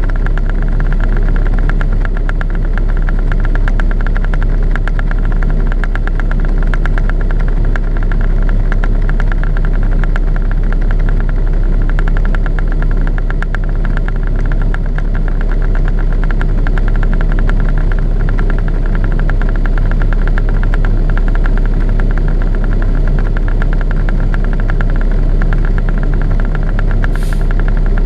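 Truck's diesel engine idling steadily, heard from inside the cab as a loud, even low hum.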